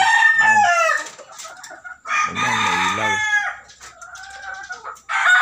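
Gamefowl roosters crowing several times in a row: one crow trails off about a second in, another comes about two seconds in, a fainter crow follows, and a new crow starts near the end.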